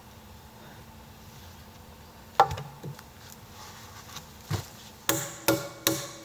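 Hammer blows on wood: a few separate knocks, then from about five seconds in a steady run of ringing strikes, about two and a half a second, as nails are driven into the platform timber.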